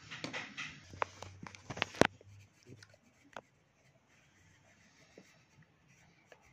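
Wax crayon scratching and rubbing on paper as a picture is coloured in, with a few sharp clicks and knocks in the first two seconds, the loudest about two seconds in, then fainter rubbing with scattered ticks.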